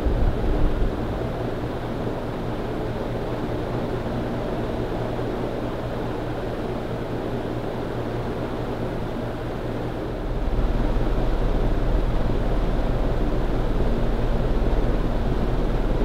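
Casablanca Ventura II ceiling fan running: a steady rush of air from the spinning blades over a low motor hum. About ten seconds in, the sound gets louder, with a deeper rumble underneath.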